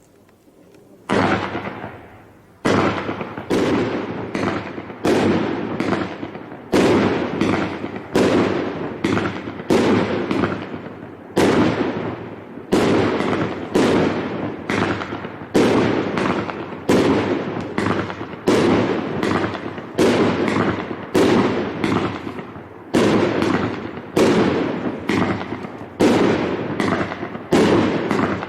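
Emperor Sky Dazzler Extreme 25-shot firework cake firing, starting about a second in: a steady run of sharp bangs, roughly one every three-quarters of a second, each followed by a fading rumble.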